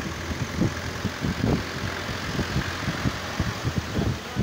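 Farm tractor's diesel engine running as the tractor drives, a steady low rumble broken by uneven low thumps several times a second.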